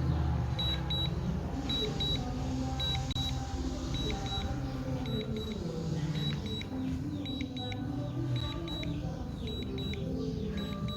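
DJI Fly app's critically-low-battery warning on a DJI Mini 2: pairs of short high beeps repeating about once a second, over background music.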